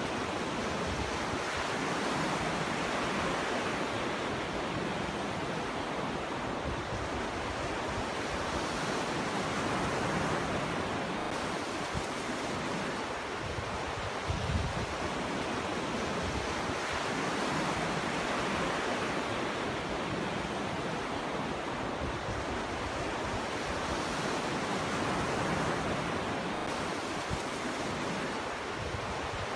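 Ocean waves breaking on a shore, a continuous surf wash that swells and eases every few seconds, with some wind noise.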